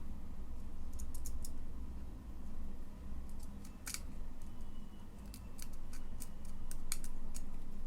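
Scattered small, sharp clicks and snips of hands working with small hard parts, such as switches and wire. The loudest click comes about four seconds in, and there is a quick run of them around six to seven seconds, over a steady low hum.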